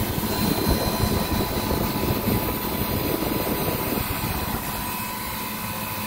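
Walk-in cooler condensing unit running: steady rushing of the condenser fan over a low compressor hum.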